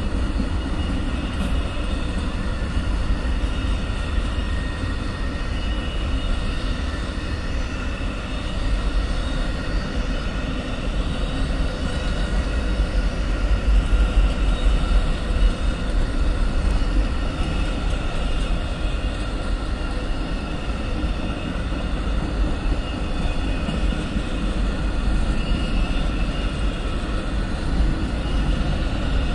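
Amtrak Auto Train's bi-level auto-rack cars rolling past: a steady deep rumble of steel wheels on rail, with high ringing tones over it. It swells a little about halfway through.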